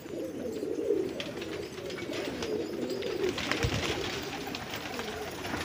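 A flock of domestic pigeons cooing continuously together, with scattered short clicks among them and a brief low thump about two-thirds of the way through.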